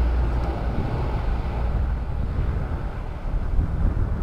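C-130 Hercules four-engine turboprop at takeoff power, lifting off and climbing. Heavy wind rumble on the microphone lies under it.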